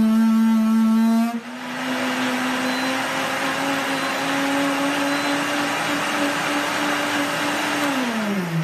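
Homgeek 1450 W countertop blender's 2.25 hp motor running with liquid in the jar. About a second in it changes speed and drops to a quieter, steady whirr, and near the end it is switched off and winds down with a falling pitch.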